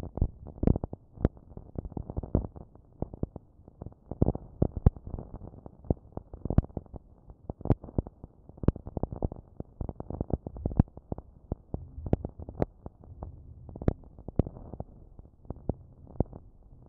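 Electronic ambient track made in Ableton from distorted sample sounds: a dense, irregular crackle of muffled thumps and clicks, with a few sharper clicks and no steady beat or clear melody.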